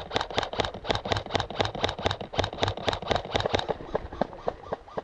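Airsoft gun firing a rapid string of single shots, about four or five a second. The shots are sharp and loud for roughly the first three and a half seconds, then continue more softly near the end.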